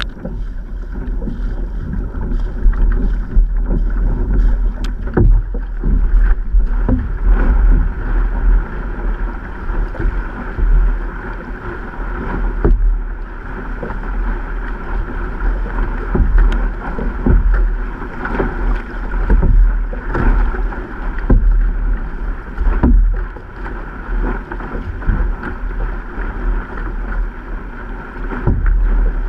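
Sea water splashing and rushing against the hull of a paddled outrigger canoe, with irregular slaps and splashes every second or two over a constant wash. Heavy wind rumble on the microphone underneath.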